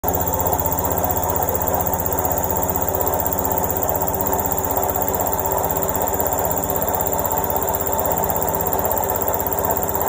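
Indesit front-loading washing machine on its final spin: a steady machine whir with a rapid low pulsing from the turning drum, unchanging throughout.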